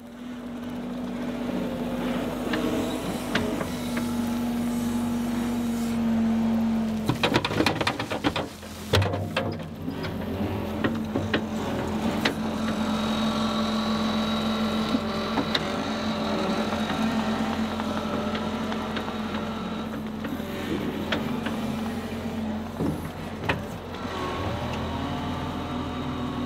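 John Deere 325G compact track loader's diesel engine running steadily under load as it pushes dirt, with a run of sharp clanks and knocks about seven to nine seconds in.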